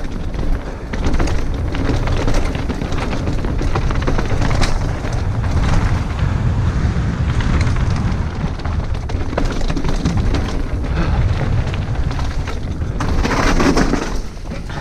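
Heavy wind buffeting on a mountain-bike camera's microphone at speed, with a Specialized Stumpjumper trail bike's tyres running over a loose, stony dirt trail and the bike clattering and rattling with many quick knocks over the bumps.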